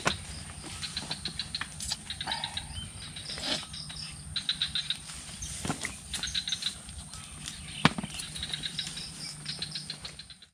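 Crickets and other night insects chirping: quick repeated trains of high chirps over a steady high insect drone, with a low hum beneath and a few scattered sharp clicks.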